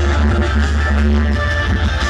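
Loud live music from a large outdoor concert sound system, with a heavy, steady bass.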